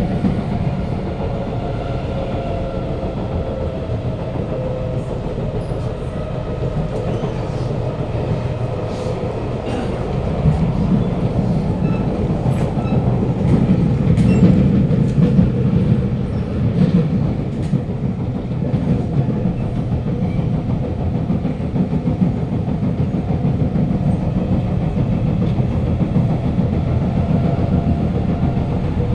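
Running noise of a Kawasaki Nippon Sharyo C751B metro train heard inside the car: a steady wheel-and-rail rumble with scattered clicks, growing louder for a few seconds midway. The car has severe wheel flats, which add to the wheel noise.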